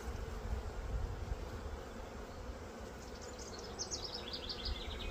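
Honey bees buzzing in a steady dense hum around an open hive and a bee-covered brood frame. About three seconds in, a short run of quick high ticks falls in pitch.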